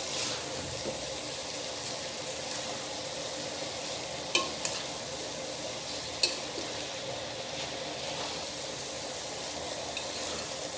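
Minced beef, onion, tomato and fried bitter gourd sizzling in oil in a pot as they are stirred, a steady frying hiss. A few sharp clicks of the stirring utensil against the pot come around the middle.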